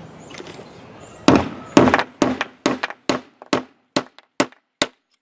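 A hammer striking a grommet setting tool to crimp a metal grommet into a tarp: about a dozen sharp metallic blows, roughly three a second, loudest at first and growing fainter.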